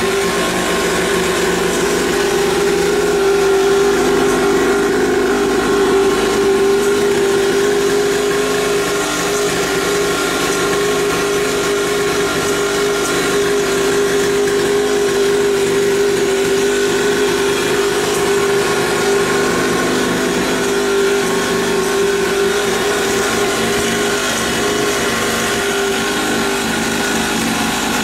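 Small 49cc two-stroke mini dirt bike engine running steadily, a constant buzzing note with slight wavering in pitch.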